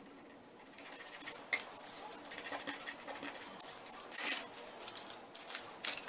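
Paper rustling as a sheet covered in painted masking tape is handled and lifted off a craft mat, with a few sharp crackles.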